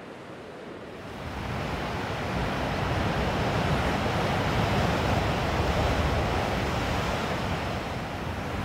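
Ocean waves breaking and washing over a rocky shore, a steady rush of water that grows louder about a second in and stays loud.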